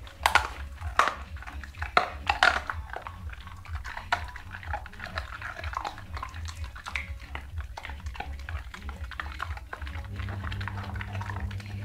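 An American Pit Bull Terrier chewing and gnawing a meaty bone: irregular crunches and wet clicks, the loudest few in the first three seconds, then smaller ones throughout. A steady low hum runs underneath.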